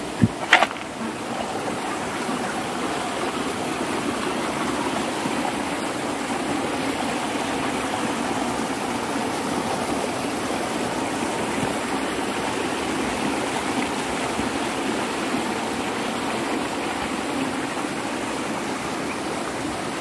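Rocky mountain stream rushing over boulders in small rapids: a steady wash of flowing water. Two sharp clicks come in the first second.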